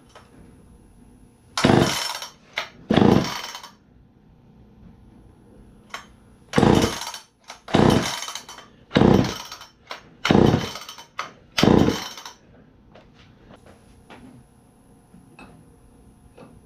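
Poulan 306A chainsaw's recoil starter yanked about seven times, two pulls, a pause, then five more in quick succession, with the engine turning over but not catching. These are the first start attempts after a carburetor rebuild.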